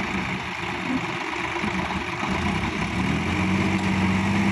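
Diesel tractor engines running under load as a Sonalika tractor pulls a Swaraj 855 FE, mired in deep mud, by a chain. The engine note rises about three seconds in and holds higher as the tractors pull.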